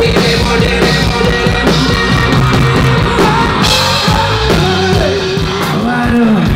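Live rock band playing loudly through a PA: drum kit, electric guitars and bass guitar, with a man singing over them.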